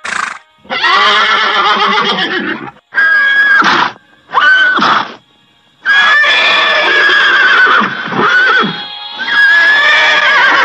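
Horse neighing and whinnying repeatedly, about seven calls with short pauses between them. Two of the calls are long and quavering.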